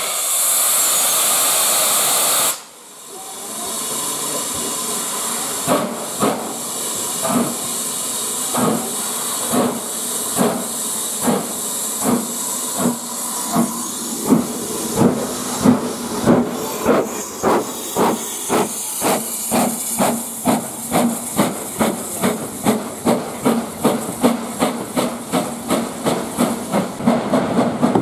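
Hiss of steam from a BR Standard Class 4MT 4-6-0 steam locomotive that cuts off sharply about two and a half seconds in. A few seconds later the exhaust beats begin, slow at first and getting steadily faster as the locomotive pulls away with its train.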